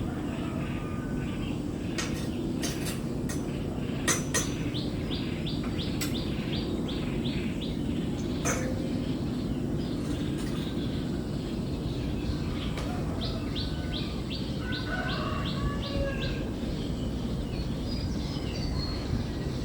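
Small birds chirping in quick repeated runs of high notes, twice, with scattered shorter calls, over a steady low rumble of background noise. A few sharp clicks fall in the first half.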